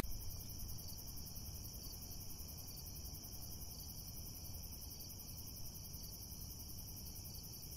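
Crickets chirping in a steady, rapid trill, opening with a brief sharp click.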